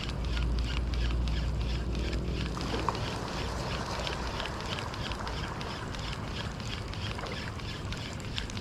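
Daido Dark Knight 2000 spinning reel being cranked steadily to retrieve a lure, giving a regular ticking about three times a second, over the wash of small waves at the shoreline.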